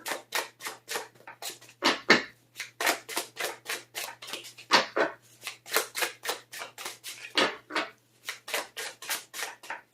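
Tarot cards being shuffled by hand: a run of short, sharp card slaps and clicks, about three a second, with a faint low hum underneath.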